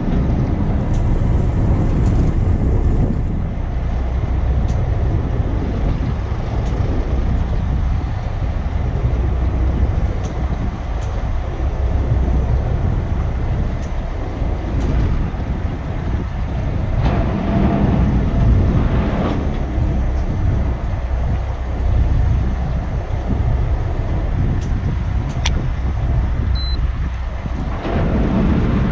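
Steady low rumble of a boat's engine running, with wind buffeting the microphone.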